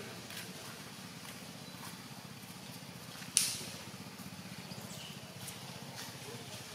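Long-tailed macaque biting and chewing a hard green fruit, with faint wet clicks and one sharp crunch about halfway through as it bites into the skin. A steady low engine hum runs underneath.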